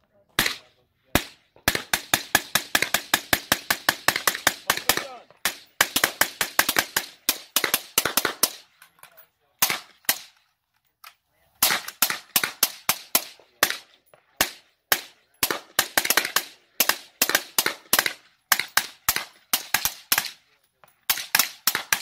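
Two suppressed AR-style rifles fired rapidly side by side: dense strings of shots in the first eight seconds, a lull with only a few single shots, then quick steady fire at a few shots a second to the end.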